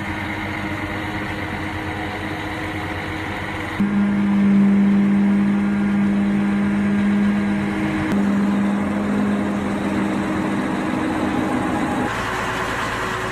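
Diesel engines of mobile cranes running steadily under load while lifting a railway flat wagon, a continuous engine hum. About four seconds in, a louder low steady hum comes in, and the sound shifts again near eight and twelve seconds.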